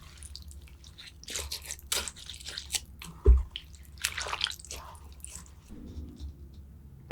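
A person chewing food close to the microphone, with wet mouth sounds, and a sharp knock about three seconds in.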